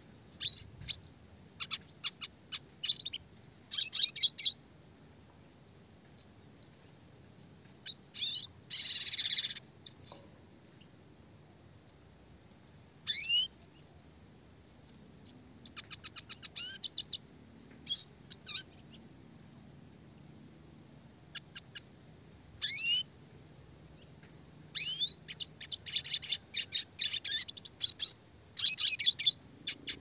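Red siskin singing in bursts: short sharp chirps and rising whistled notes, with fast trills, and one harsh buzzy note about nine seconds in.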